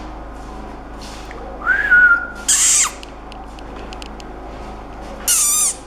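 Tibetan Mastiff puppy giving high-pitched whines. The first, about two seconds in, rises and holds. A rougher, louder yelp follows straight after, falling in pitch. Near the end comes a wavering whine that drops in pitch.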